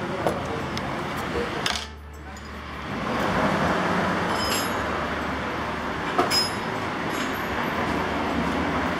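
Two light metal clinks, a couple of seconds apart, as motorcycle fork parts are handled in a parts-washer tub, over a steady noise.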